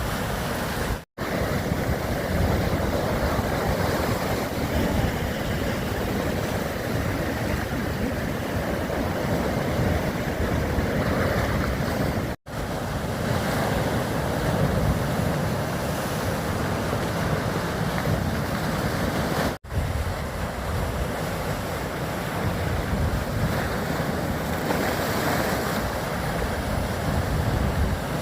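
Steady wind noise on the microphone over washing waves, a continuous rushing hiss that drops out to silence for an instant three times.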